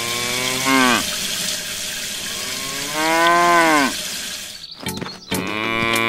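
Cattle mooing: three drawn-out moos, each bending down in pitch at its end, the third starting about five seconds in. Under the first two is the steady hiss of water spraying from a small shower head, which stops about three-quarters of the way through.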